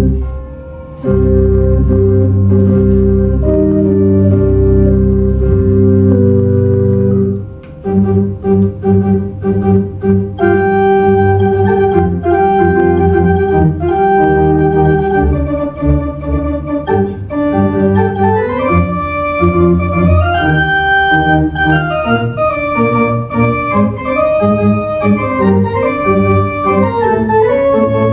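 Kimball theatre organ playing a medley of film tunes. It opens with held full chords, then from about eight seconds in moves into a faster tune with a moving melody over sustained chords.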